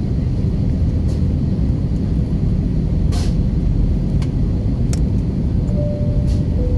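Steady airliner cabin noise heard from a window seat during the descent: the low rumble of the jet engines and the airflow, with a few faint clicks.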